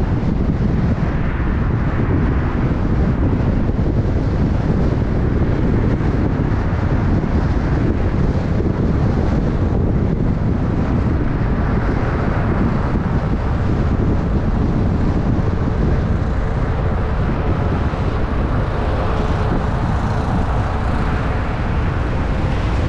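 Car driving along a street: steady wind rushing over the microphone mixed with road and engine noise.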